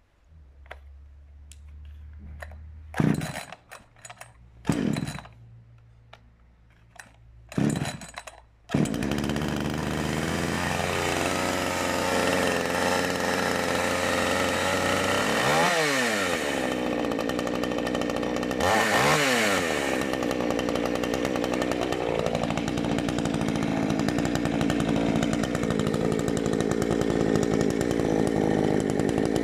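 Efco MTH 5600 two-stroke chainsaw being pull-started: a few short yanks on the starter cord, then the engine catches about nine seconds in and keeps running. It is revved up and back down twice, around the middle, and otherwise runs at idle.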